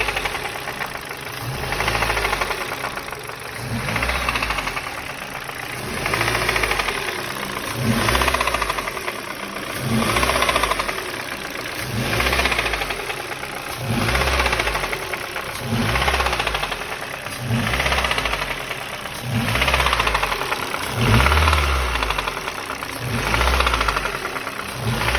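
Ford Focus 1.6 Duratec (HXDA) four-cylinder engine being revved and released about every two seconds, the engine note rising and falling each time. A knock comes through as the revs drop on throttle lift-off; its cause is unknown to the owner.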